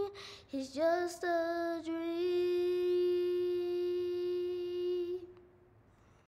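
A child's solo singing voice: a few short notes, then one long held note that ends about five seconds in.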